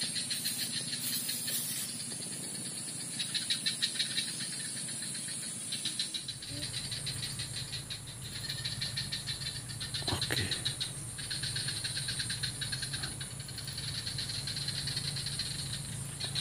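Rapid, high-pitched rattling calls of small swamp animals, coming in stretches of a second or more. A steady low hum runs under them from about six seconds in, with a brief sweep in pitch at about ten seconds.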